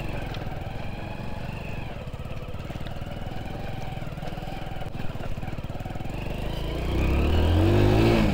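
Hero Passion motorcycle's small single-cylinder four-stroke engine pulling steadily in low gear up a rough off-road hill track. Near the end an engine revs up louder, its pitch rising, then easing off.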